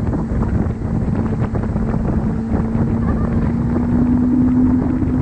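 Motorboat engine running at a steady speed, its note dipping slightly and then climbing again, with wind rushing over the microphone.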